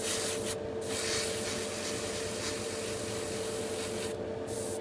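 Airbrush hissing as it sprays thinned paint in light passes, the trigger let go briefly about half a second in and again near the end. A steady mechanical hum runs underneath.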